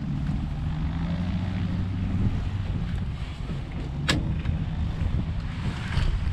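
Light aircraft engine idling with a steady low hum, mixed with wind on the microphone. A single sharp click about four seconds in.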